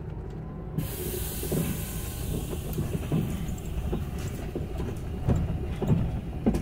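Inside the cabin of an Olectra K9 electric bus on the move: a steady low rumble from the road and body, with scattered knocks and rattles. About a second in, a steady high hiss starts suddenly and continues.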